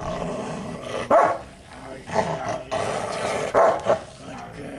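Wolf hybrid dog vocalizing: several loud short barking calls about a second apart, with quieter vocal sounds between them.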